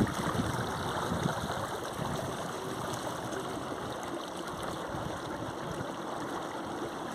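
Steady rush and splash of lake water against the hull of an inflatable boat under way.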